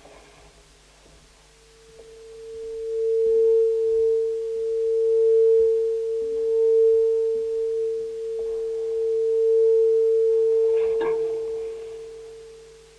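A single steady pure tone from a DIY experimental sound instrument, like a sine wave, swelling in about two seconds in, holding with slowly wavering loudness, then fading away near the end. A short rustle sounds just before the fade.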